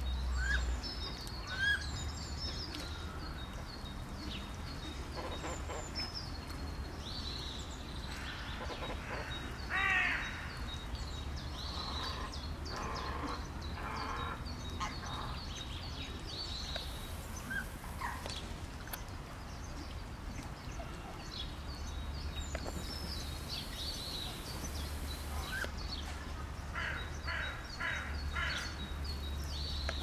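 Mixed birds calling: many short high chirps throughout, with louder harsh call series about ten seconds in and again near the end, over a low steady rumble.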